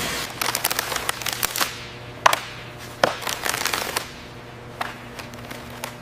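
A quick, irregular run of sharp clicks and knocks over a low steady hum. The loudest single knocks come a little past two and three seconds in, and a few more scattered clicks follow.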